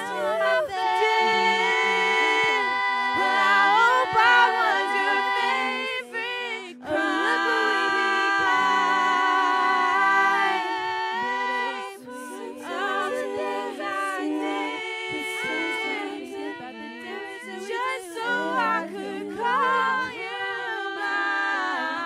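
A young woman singing a slow pop ballad into a microphone with live grand piano accompaniment, holding long notes with vibrato.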